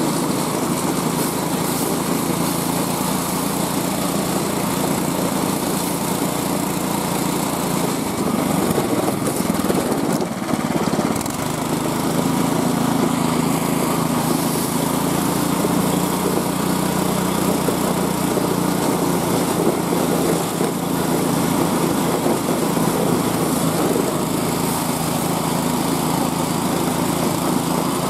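Small gas engine of a homemade motorized dog sled running steadily under way, its note dipping briefly about ten seconds in and then settling again.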